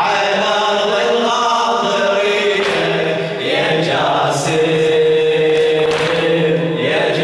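A man chanting a Shia latmiya lament (radood recitation) into a microphone in long, drawn-out melodic phrases, with one note held for about two seconds past the middle.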